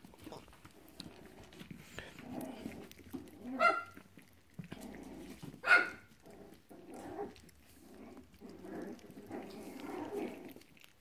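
Young puppies at play, growling low and rough as they wrestle and mouth, with two short high-pitched yelps about two seconds apart near the middle.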